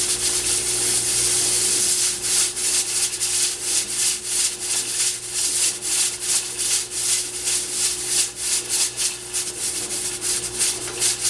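Stovetop pressure cooker venting steam through its pressure valve, a loud hiss. About two seconds in the hiss turns into a rapid, uneven sputter as the valve releases the built-up pressure.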